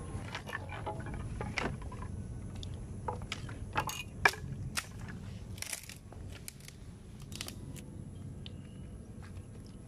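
Dry branches and sticks knocking and cracking as firewood is handled and piled. The sharp clatter comes thick and fast for the first six seconds, with the loudest crack about four seconds in, then thins to scattered knocks.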